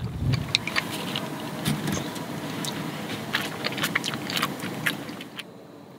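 A sandwich cooking in a hot sandwich cooker on a small camp stove: a steady hiss with scattered crackles and sharp metal clicks as the cooker is handled and flipped. It stops short about five and a half seconds in.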